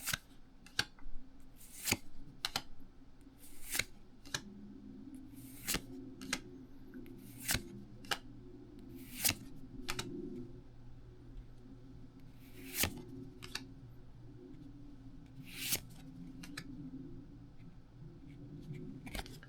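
Pokémon trading cards being flicked through one at a time, each card sliding off the stack with a short, sharp papery snap, about one every second or so.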